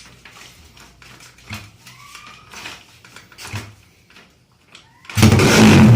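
Honda Kharisma drag bike engine, a single-cylinder four-stroke built out to 200cc and running for the first time without any tuning yet, starts suddenly about five seconds in and runs loudly.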